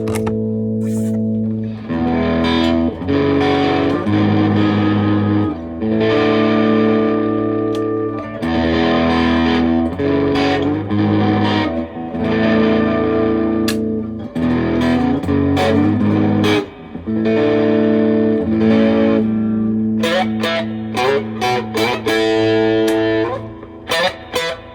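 Electric guitar played through a handmade Colorsound-style effects pedal: sustained, distorted chords ringing out and changing every second or two, with quicker picked notes near the end.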